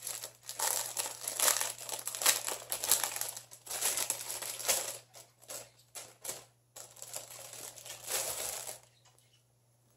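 Thin clear plastic packaging bag crinkling and rustling in the hands as a canvas cosmetic pouch is pulled out of it, in irregular bursts that stop about a second before the end.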